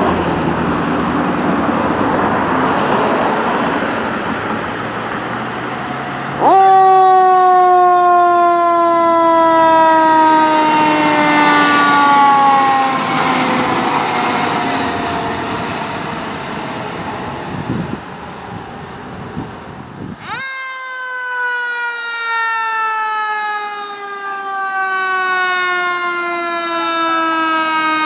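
Fire engine's engine and road noise, then its mechanical siren winds up sharply about six seconds in and coasts down in a long, slowly falling wail. Around twenty seconds in it is wound up again and falls away slowly once more.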